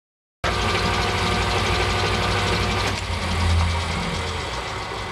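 Milling machine running, a steady mechanical hum with a whine of several steady tones over it. About three seconds in, the whine stops and the lower hum carries on.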